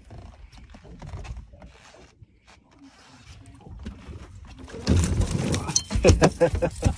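A landed catfish thumping and flopping on the boat deck: a quick, irregular run of loud knocks and thumps starts about five seconds in, after a few faint clicks.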